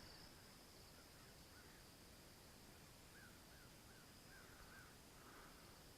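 Near silence with faint, distant bird calls: short chirps, a couple about a second in, then a quick run of about five in the second half, over a faint steady high-pitched hum.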